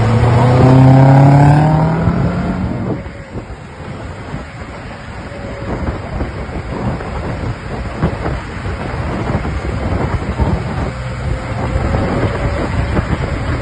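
Off-road vehicle's engine revving hard with rising pitch, then falling away suddenly about three seconds in to a lower, steady rumble of engine and driving noise.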